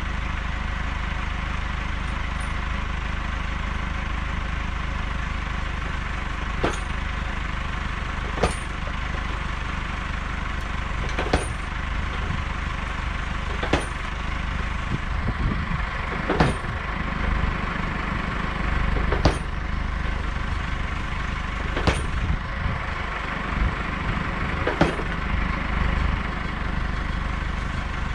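Tractor engine running steadily while a tractor-mounted post banger drives a wooden fence post, its weight striking the post top with a sharp bang. The strikes begin about a quarter of the way in and come eight times, roughly one every two and a half to three seconds.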